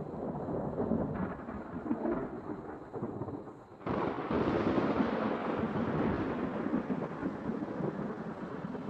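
Thunder rumbling in a thunderstorm. A long low rumble fades, then breaks off about four seconds in, and a fresh, louder roll takes over and slowly dies away.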